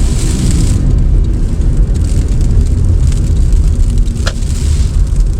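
Heavy low rumble inside a car in blizzard-force wind, wind buffeting and road noise together. A hiss runs through the first second, and there is a single sharp click about four seconds in.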